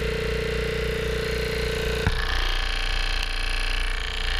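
A ship's two-stage, water-cooled reciprocating air compressor running steadily after an overhaul. About two seconds in there is a sharp knock, and the pitch of the running noise changes.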